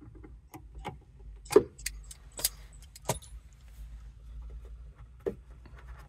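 Pliers gripping and working a tight metal cap off an expansion vessel's Schrader valve: a scattered series of sharp metallic clicks and clinks, the loudest about one and a half seconds in.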